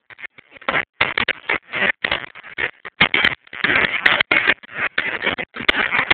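Two-stroke gasoline rock drill (YN27 type) running and hammering its drill steel into a stone block: a rapid mechanical clatter that cuts in and out in short, choppy bursts.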